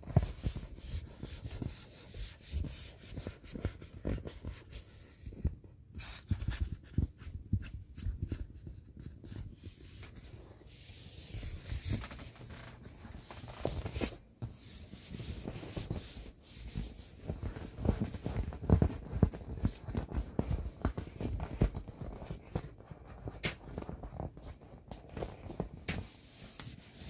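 A hand rubbing, pressing and squeezing the inflated vinyl skin of a PuffyPaws Gen 3 inflatable wolf: irregular rubbing with many small bumps and knocks as the taut vinyl is handled.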